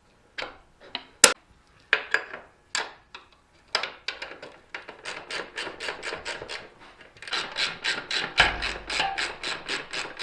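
Hand tools working the bolts of a Kawasaki ZX6R's rear suspension linkage as it goes back in, bolts left short of their final torque. First come scattered metal clicks and knocks, then from about four seconds a fast, even clicking at about five a second.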